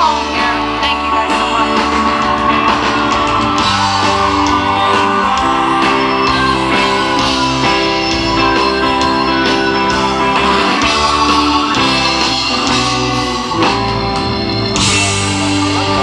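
Live rock band performance: a woman singing lead over electric bass and guitar. The sound grows brighter and fuller near the end.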